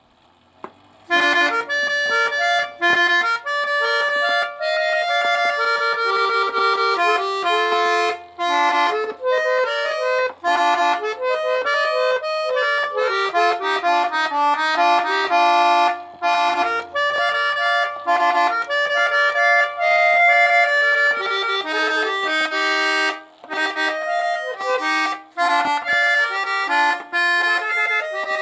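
An 1880s Emilian Wehrle 11-note trumpeter clock movement plays its tune on bellows-blown reed trumpets, in chords of several notes at once, starting about a second in. It is still in the tuning stage, with the pipes not yet fully tuned to the reeds.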